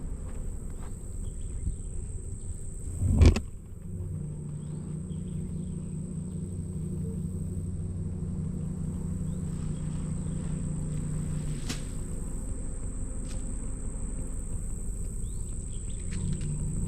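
A single loud thud about three seconds in, then a vehicle engine running steadily, its hum growing stronger a second later.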